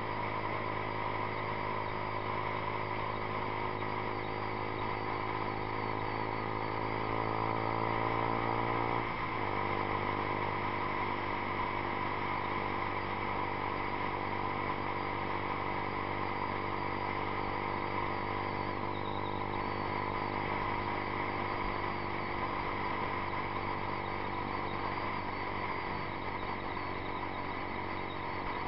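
Yamaha YZF-R15's single-cylinder engine through a Two Brothers Racing exhaust, ridden at road speed, with wind noise throughout. The engine note climbs steadily as the bike accelerates, drops sharply about nine seconds in as it shifts up a gear, then holds fairly steady while cruising.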